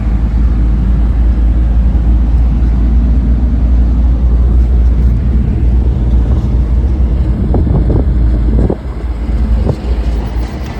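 Steady low engine and road rumble of a small goods vehicle driving, heard from inside the cab with wind on the microphone; it eases off about nine seconds in, with a few light knocks.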